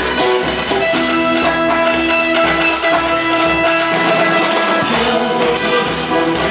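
Live band playing an instrumental stretch: strummed guitars over a steady drum and bass beat, with long held notes above.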